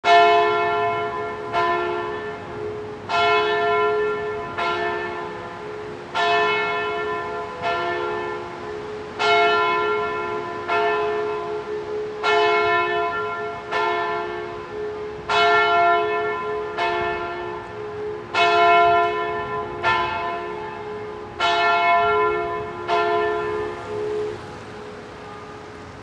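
Church bells ringing, one stroke about every second and a half, alternating louder and softer strokes, each ringing on with a low hum between strokes. The last stroke fades out shortly before the end.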